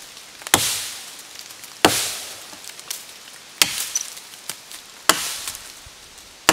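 Re-hafted Fiskars axe chopping into a dead sugar maple trunk: five sharp strikes about a second and a half apart, each trailing off briefly.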